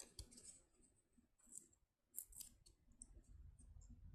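Faint, intermittent crinkling and rustling of a sheet of paper being folded in half, with a few short crackles.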